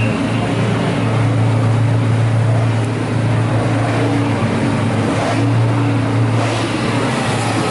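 A car engine running steadily, a low even hum that slackens briefly a couple of times.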